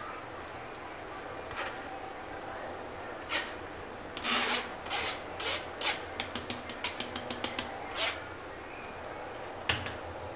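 Stainless-steel mesh strainer scraping and tapping against a steel mixing bowl as boiled potatoes are shaken out into flour: a few scrapes in the middle, then a quick run of short taps, about seven a second.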